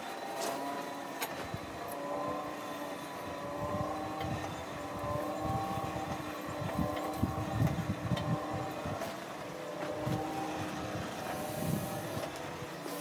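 Hand-cranked forge blower whirring steadily as it is spun to feed air to a coal fire, its whine wavering slightly in pitch with the cranking speed. A few sharp clicks are heard near the start.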